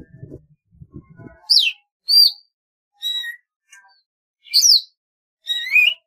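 Golden-fronted leafbird calling: five loud, separate whistled notes and short phrases about a second apart, two of them sliding steeply down in pitch and the last one rising.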